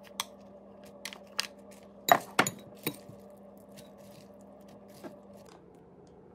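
Metal chopsticks clinking against a ceramic bowl while tossing noodles with salad greens: a handful of separate sharp clinks, the loudest pair a little after two seconds in, over a faint steady hum.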